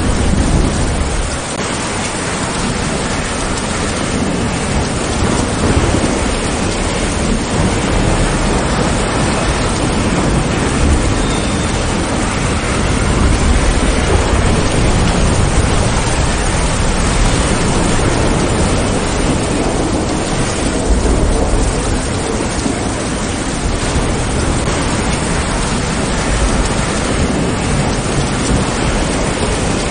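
Steady heavy rain, with low rumbles of thunder coming and going underneath several times.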